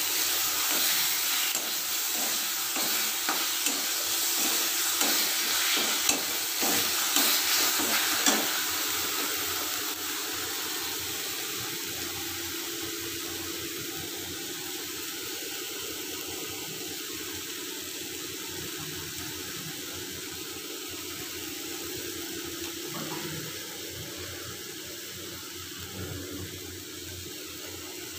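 Masala paste sizzling in a steel kadai, with a metal spatula stirring and scraping against the pan over the first eight seconds or so; after that a steadier, quieter sizzle.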